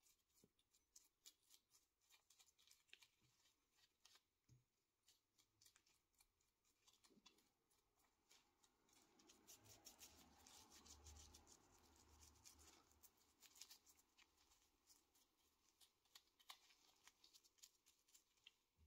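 Near silence with faint, quick scratching and ticking: a small paintbrush dabbing cold bluing solution onto a steel bolt's threads. The scratching grows denser and is joined by a soft rubbing for a few seconds in the middle.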